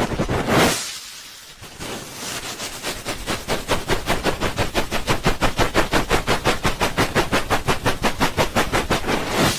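Hands rubbing rapidly over a binaural microphone's ears in the 'helicopter' ear-rub ASMR effect: a single sweep, a brief lull, then fast, even rubbing strokes about six a second, ending in a louder sweep near the end.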